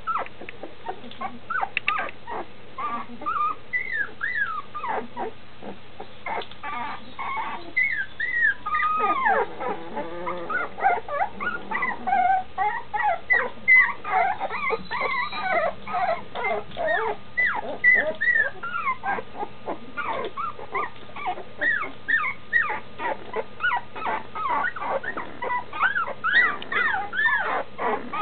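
A litter of nearly two-week-old standard schnauzer puppies crying for their mother: many short, high cries that bend up and down in pitch, overlapping almost without a break.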